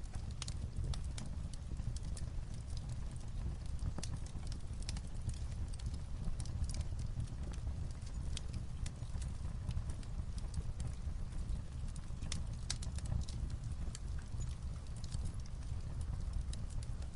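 Light rain on a roof mixed with a wood fire crackling: irregular sharp crackles and ticks over a steady low rumble.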